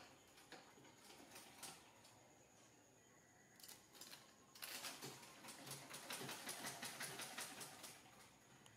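Sewing machine stitching: a fast, even run of clicks lasting about three seconds, starting about halfway in. A few light scrapes and rustles come before it.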